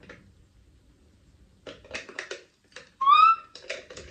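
A plastic skincare bottle is handled and its cap twisted, giving a few light clicks and rustles. About three seconds in comes one short, loud, high squeak that rises slightly in pitch.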